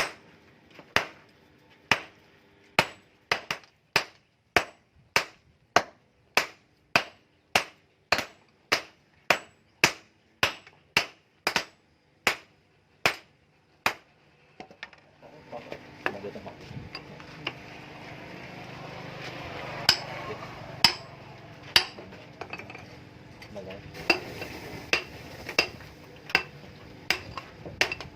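A blacksmith's hand hammer strikes an axe blank on the anvil in a steady rhythm, a little under two blows a second, and each blow rings metallically. About halfway through the steady hammering stops. A rushing noise swells and fades, and a few scattered strikes sound over it.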